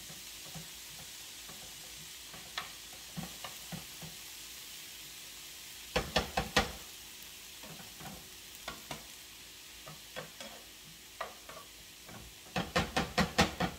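Calabacitas with onion and chile sizzling in oil in a frying pan, with a spoon scraping and knocking against the pan as they are stirred. A quick run of sharp knocks comes about six seconds in, and another near the end.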